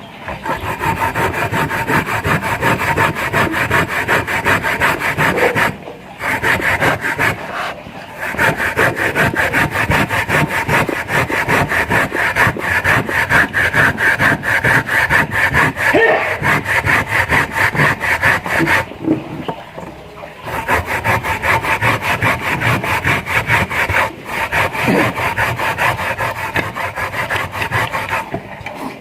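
Rapid, steady back-and-forth scraping or grating strokes by hand, stopping briefly a few times.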